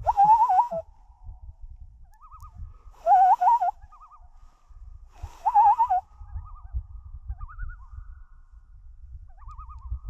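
Several common loons giving quavering tremolo calls, three loud calls near the start, about three seconds in and about five and a half seconds in, with fainter calls from other loons between them. A gusty low rumble of wind on the microphone runs underneath.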